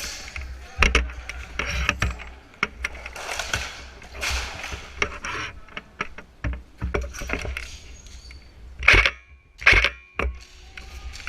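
Clatter and rustling of a player moving with gear, with scattered clicks and knocks over a low rumble. Two louder bursts come close together about nine and ten seconds in.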